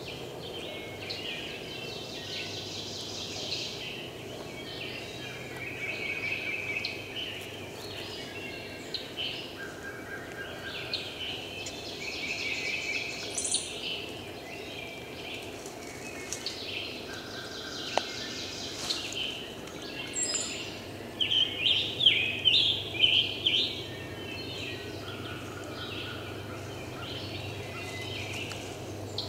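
Songbirds singing and chirping, with a few held whistled notes, and a louder run of calls from a nearby bird about three-quarters of the way through.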